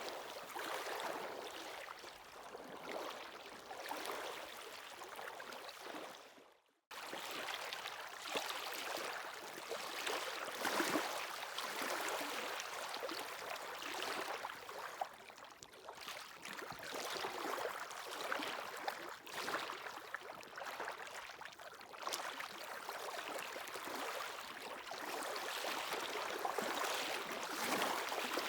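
Sea waves washing onto the shore in slow surges. About six seconds in the sound fades to silence, then cuts back in abruptly.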